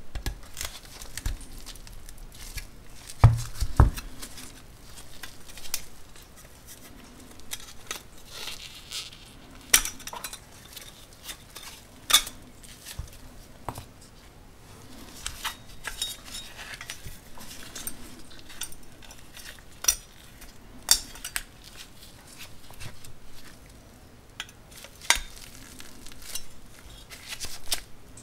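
Pliers working the tabs of a 1930s Wyandotte pressed-steel toy truck cab: irregular small metal clicks and scrapes, with two louder knocks about three seconds in.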